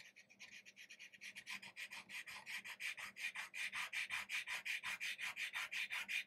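Chalk pastel stick scratching across paper in quick back-and-forth colouring strokes, about seven a second, growing louder over the first few seconds as more pressure goes on.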